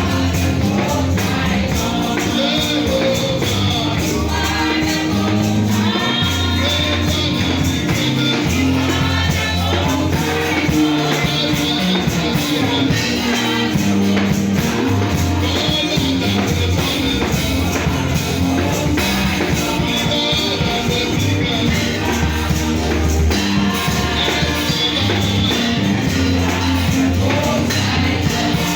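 Gospel music with singing, a tambourine and a bass line, playing steadily with a regular beat.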